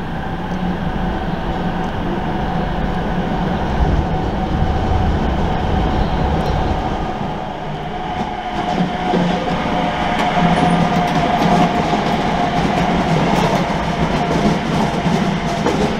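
A pair of SBB Cargo Re 482 electric locomotives running past: a steady electric whine over the rumble of the wheels, growing a little louder as they come closer, with rapid clicking of wheels over rail joints in the second half.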